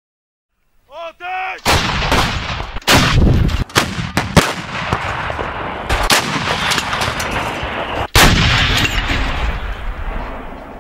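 Towed artillery howitzers firing: a series of heavy blasts, several close together in the first few seconds and more about six and eight seconds in. Each blast is followed by a long rolling rumble.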